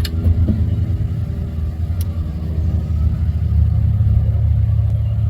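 Steady low rumble of a running motor vehicle engine, with a faint sharp click at the start and another about two seconds in.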